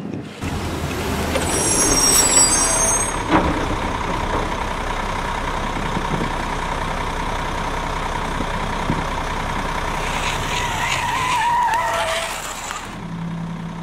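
Vehicle motor running steadily, with a thin steady whine over a noisy hum, which eases off near the end.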